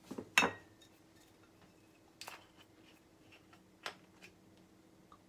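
A frying pan set down on a gas stove's metal grate: one sharp metallic clank with a brief ring about half a second in, then two lighter knocks of the pan being handled.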